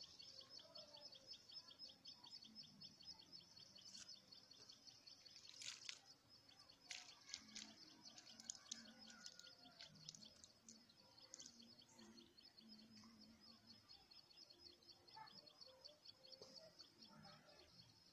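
Quiet outdoor ambience: a faint, steady high-pitched trill runs throughout, with scattered short chirps clustering over it from about six to twelve seconds in.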